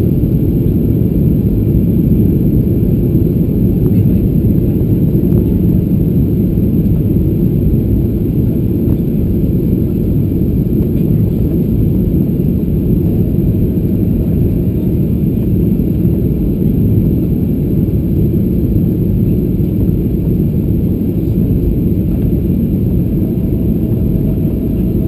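Steady low rumble of engine and airflow noise inside the cabin of a Boeing 737-800 descending on approach, its CFM56 turbofans at reduced thrust, heard from a window seat over the wing.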